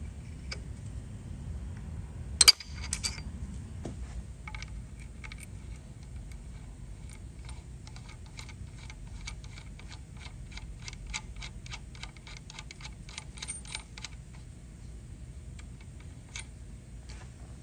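One sharp metallic snap as a tang break-off tool knocks the driving tang off a freshly installed Helicoil insert in an aluminum brake caliper. After it comes a long run of light, even clicking, about three to four ticks a second, as a bolt with a washer is turned by hand into the new insert.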